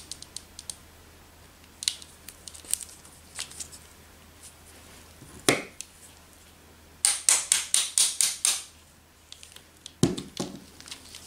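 Pliers and a small metal pin working on the plastic end cap of an HP 19A imaging drum unit, as the pin that holds the drum is pushed back in: scattered light clicks and taps, a run of about eight quick sharp clicks around the middle, and a dull knock near the end.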